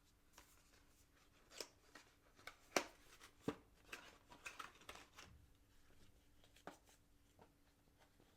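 Unboxing handling noises: a string of faint clicks and taps from the box and its packaging, loudest about three seconds in, with a quick flurry of small rustles just after four seconds.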